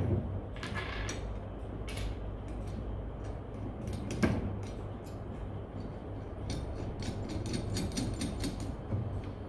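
Steel cultivator tine blades being handled and slotted onto the tine shaft's mounting flange: scattered light metal clicks and clinks, a louder knock about four seconds in and a quicker run of clicks near the end, over a steady low hum.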